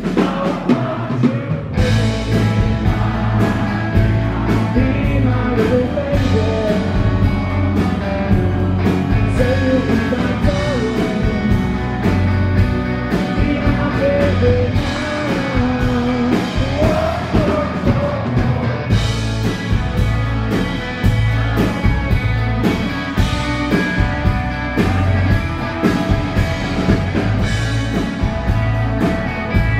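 Live rock band playing: semi-hollow electric guitar and bass guitar over a steady drum beat, with a melodic line winding over the top.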